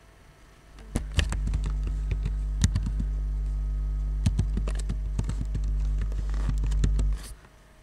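Computer keyboard keys tapped in short irregular runs as a name is typed, over a steady low hum that starts about a second in and cuts off suddenly near the end.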